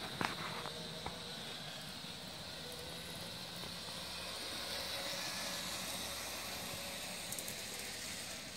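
HO-scale model train running on sectional track: a steady electric-motor hum with wheel hiss that swells a little midway. A couple of sharp knocks right at the start.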